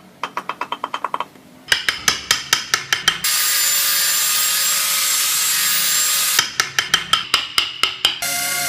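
Hand-tool work: runs of quick, evenly spaced ringing taps, then a steady high hiss lasting about three seconds, then more rapid taps.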